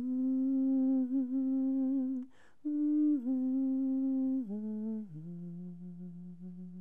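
A woman humming a lullaby tune with closed lips in long held notes. She takes a breath a little over two seconds in, and the last notes step down to a lower pitch.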